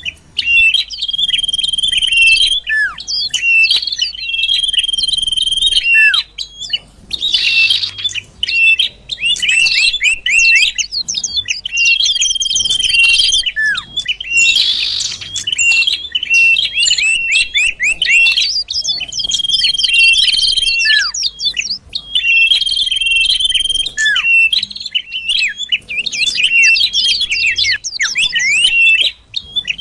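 Common iora (cipoh) song of the 'sirtu' type, played as a lure call. The same phrase repeats over and over: rapid chattering trills, a steady held whistle, and a note that slurs downward.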